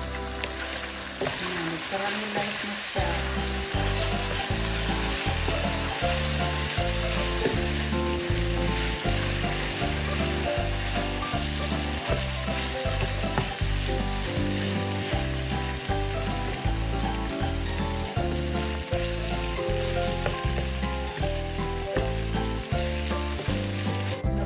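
Thin-cut beef chuck sizzling in a frying pan as it is stirred with a wooden spatula. Background music with a steady bass beat plays over it.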